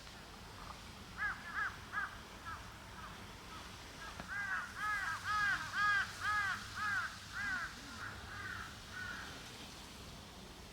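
A crow cawing in repeated hoarse calls: a short run of about four calls, then after a pause a louder run of about ten that trails off.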